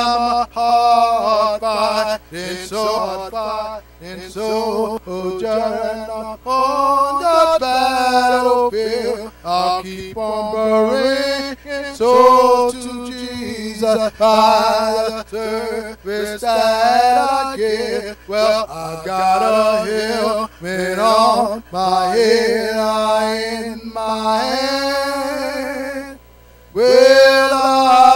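A man's voice singing a slow melody of long held notes, unaccompanied, through a church microphone, with short breaths between phrases.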